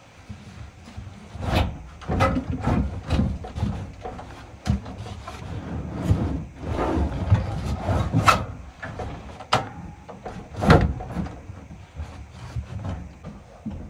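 Old sheet-metal furnace cabinet being worked loose and pulled out of its closet: irregular scraping and rubbing with many sharp knocks and clunks of metal.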